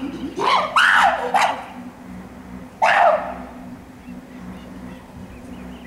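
Chimpanzees giving short, loud barking calls, about four in quick succession and one more about three seconds in, each falling in pitch.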